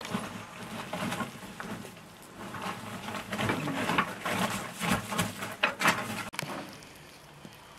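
A metal spoon spreading and patting a moist filling of chopped greens and potato over raw dough, with soft squishing and irregular light scrapes and taps. The taps thin out in the last second or so.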